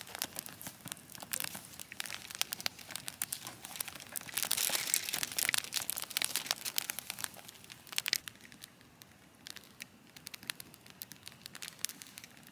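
A run of crinkling and crackling, like something being crumpled or handled, densest about four to six seconds in and thinning out after that.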